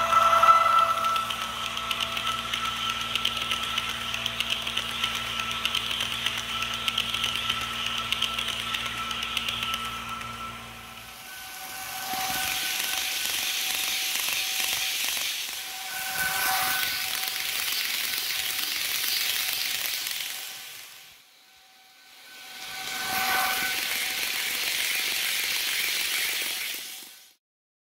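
HO scale model Railjet train, a Märklin Taurus locomotive with its coaches, running on the layout track: a steady motor hum and wheel hiss for about ten seconds. After that come three passes that each swell and fade as the train goes by close to the camera, with a brief near-silent lull between the second and third.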